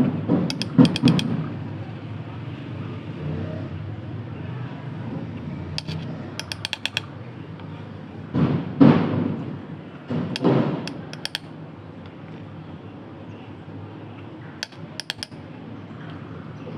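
A metal spoon clinking against a glass container in quick runs of light clicks, several times over, with a few louder handling knocks and a low steady hum behind.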